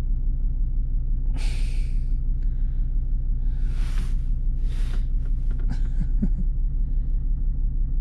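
Car engine idling steadily, a fast even low pulse throughout, while a scan tool reads its data. A few short breathy hisses sound close to the microphone.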